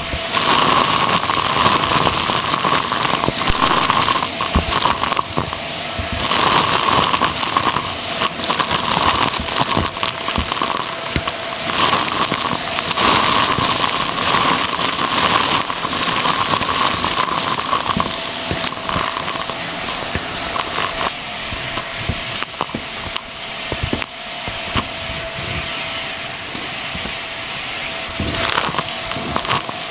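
Hart vacuum running, its wand sucking up small hard and papery bits from carpet: dense irregular clicking and crackling as the pieces rattle up the tube, over the motor's steady whine, which shifts between two pitches now and then.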